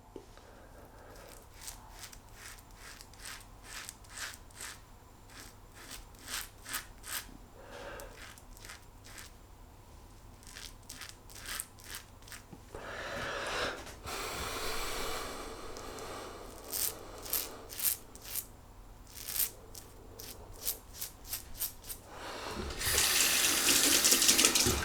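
Short scraping strokes of a two-bladed quad edge safety razor cutting lathered stubble on a third pass, with a tap running to rinse the razor twice, the second time near the end.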